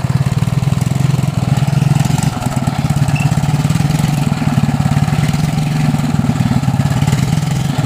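Engine of a homebuilt 1963 tractor running steadily, with a fast, even exhaust beat.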